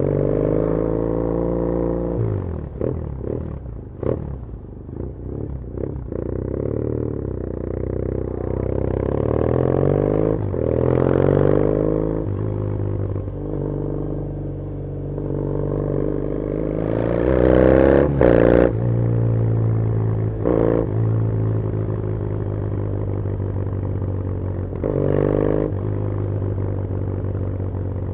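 2013 Triumph Thruxton 900 EFI air-cooled parallel twin running through a TEC aftermarket exhaust while ridden on the road. It revs up through the gears and eases off several times. A few seconds in, just after the throttle closes, there is a run of irregular pops.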